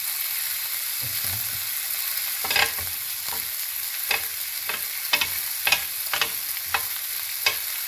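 Chicken fillet, onion slices and green pepper strips sizzling steadily on a ridged grill pan. From about two and a half seconds in, a run of sharp clicks comes from tongs turning the vegetables against the pan.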